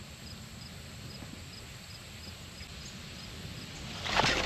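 Quiet riverside background with a faint, high chirp repeating about twice a second, typical of an insect. Near the end comes a sudden burst of clicks and knocks as the fishing rod is handled in the kayak.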